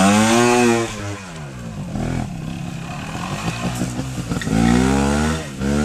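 Vintage trials motorcycle engine revving under short bursts of throttle: the revs swell and fall away in the first second, run lower, then rise and drop again near the end.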